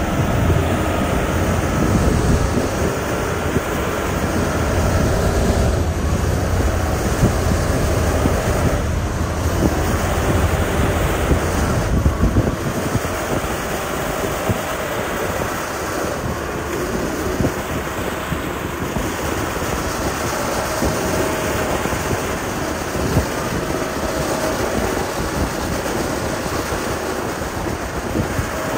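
Diesel engine of heavy road-construction machinery running steadily while it works loose gravel, a continuous mechanical rumble and rush, heavier at the low end for roughly the first twelve seconds.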